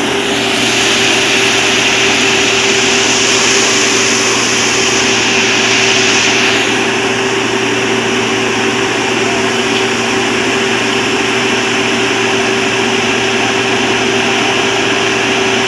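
Diesel engine of a Vögele asphalt paver running steadily with a constant hum. A loud hiss rides over it from just after the start until about six and a half seconds in, then drops away.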